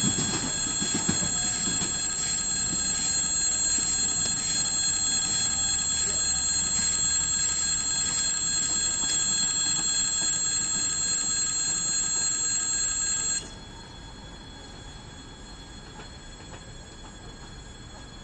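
Lastochka electric multiple unit running away along a curved track, its running noise topped by several steady high-pitched ringing tones. The tones and most of the noise cut off suddenly about thirteen seconds in, leaving only a faint hum.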